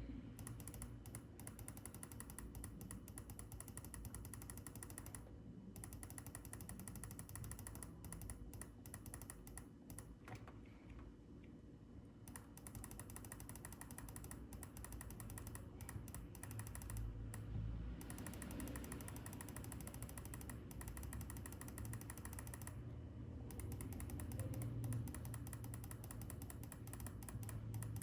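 Rapid, dense clicking from a computer keyboard and mouse in use, in runs of several seconds broken by short pauses, over a low steady hum.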